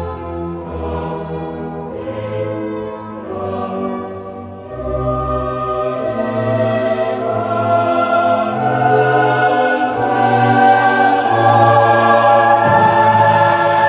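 Choral music: sustained choir voices over low bass notes that change about once a second, swelling louder about five seconds in.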